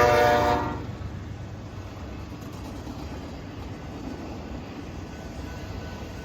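Norfolk Southern manifest freight train: the locomotive's horn sounds a chord of several tones that cuts off within the first second, then the train rolls past with a steady, quieter low rumble.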